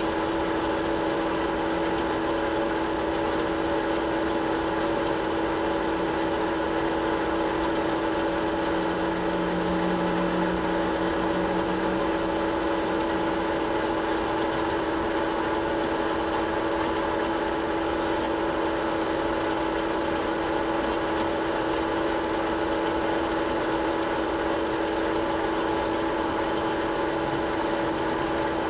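Metal lathe running at a steady speed with a constant hum and whine, while a boring bar cuts the bolt-nose recess in the threaded tenon of a Remington 700 barrel.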